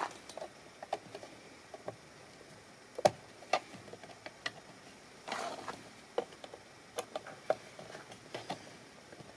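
Irregular sharp plastic clicks and knocks from a car door-mirror housing as the cowling's retaining tangs are worked loose by hand, with a brief scrape about five seconds in. The loudest knock comes about three seconds in.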